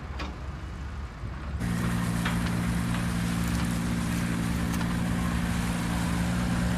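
An engine running steadily at an even speed, cutting in abruptly about a second and a half in. Before it, only faint noise with a few clicks.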